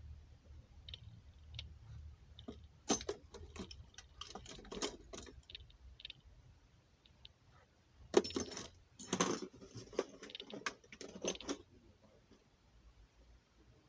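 Clicks, knocks and rattles of an ARES L85A3 airsoft rifle's parts being handled and taken apart, scattered at first and coming in two busier spells, around the third to fifth second and again from about eight seconds in.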